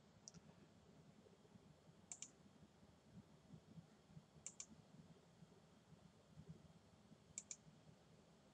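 Faint computer mouse clicks over near silence: four short clicks, most of them doubled, a couple of seconds apart.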